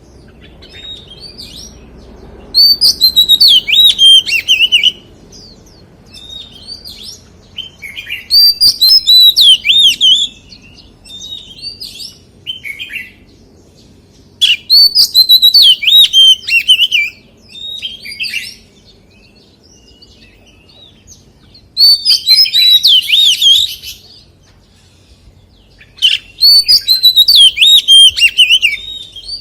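Oriental magpie-robin singing: loud, varied whistled phrases of two to three seconds each, five of them, with softer short notes between.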